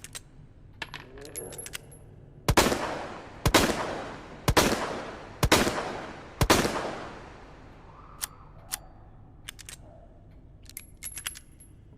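SLS-60 revolver sound effect: a few metallic clicks of the action, then five shots about a second apart, each with a long ringing decay, followed by a series of light metallic clicks and rattles.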